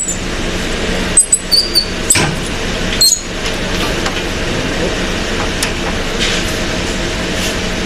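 Several sharp metal clinks and knocks between about one and three seconds in, some with a short high ring, as an A/C condenser is pushed and shifted into its mounting brackets by hand. Under them, a steady background noise.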